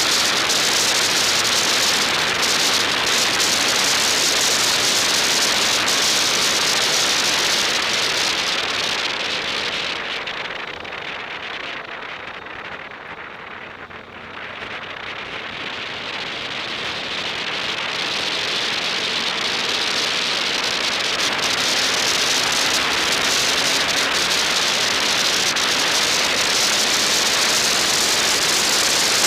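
Wind rushing over the microphone of a camera on a moving bike, a steady loud hiss that fades for several seconds around the middle and then builds back up.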